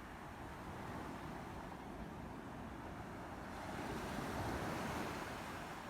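Sea waves washing ashore: a steady rush that swells louder about three and a half seconds in, then eases.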